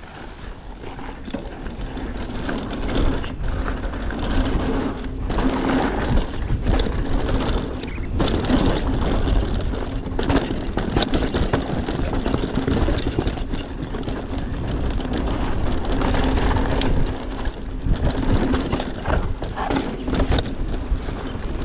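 Mondraker Superfoxy enduro mountain bike ridden down a rough trail, heard from a GoPro: a constant rattle of sharp knocks from the bike over rough ground, with tyre noise and wind rumble on the microphone. It grows louder over the first few seconds.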